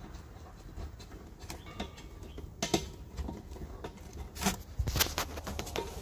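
Handling sounds as a charging hose is fitted to a refrigerant cylinder's valve: scattered clicks and knocks, a cluster of them near the end, over a low steady hum.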